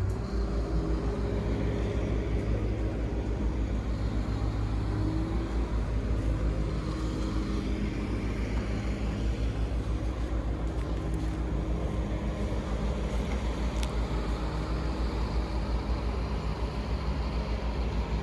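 Road traffic, with a vehicle engine running close by as a steady low throb.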